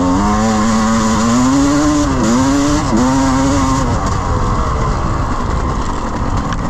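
GasGas enduro dirt bike engine under riding load, revving up and down with two quick dips in pitch midway, then sinking under a steady rushing noise.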